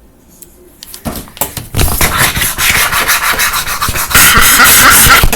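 Loud, close rubbing and scratching against a surface right at the microphone, made as an ASMR sound. A second of quiet with a few clicks comes first, then the rubbing starts and is loudest near the end.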